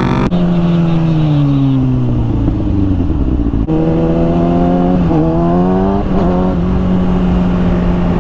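Sport motorcycle engine under way at speed. Its note drops sharply just after the start and sinks slowly for about three seconds, jumps higher near the middle, and then holds fairly steady.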